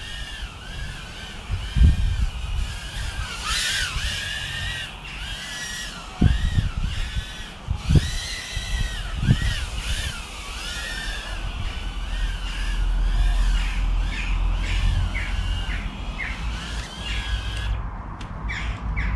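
Tiny 1S whoop quadcopter's brushless motors whining in flight, the pitch rising and falling constantly with throttle, with a few low thumps along the way. The whine stops near the end as the quad lands and disarms.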